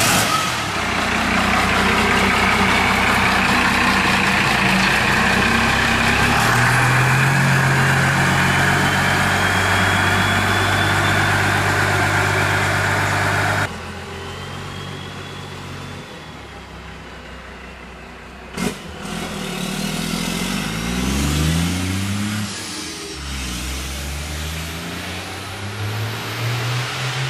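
A pickup truck's engine running loud, its revs stepping up about six seconds in. After a sudden cut, a pickup drives past more quietly, its engine pitch rising and then falling.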